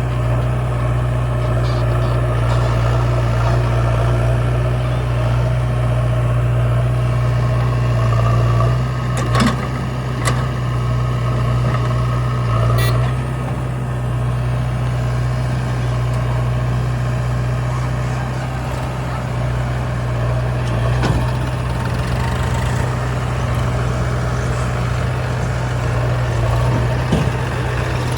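Diesel engine running steadily, with a few short sharp knocks around the middle.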